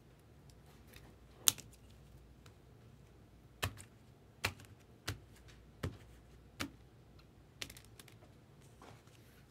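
A series of sharp plastic clicks and taps, about seven in all at irregular intervals of roughly a second: rigid plastic toploader card holders being handled and set down on the table.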